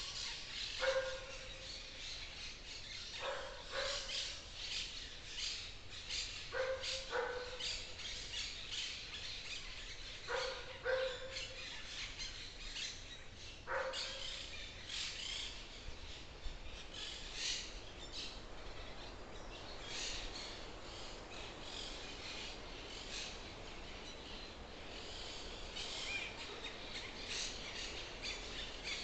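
Birds chirping and singing in a forest throughout. Through the first half a lower, harsher animal call repeats five times, about every three to four seconds, often as a quick pair.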